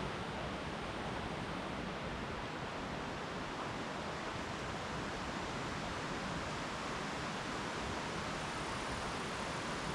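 Mountain stream rushing steadily over rocks, an even, unbroken rush of flowing water.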